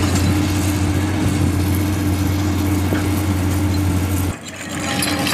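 Heavy diesel engine running steadily at a low idle, a constant low hum with a steady tone above it, cutting off abruptly about four seconds in.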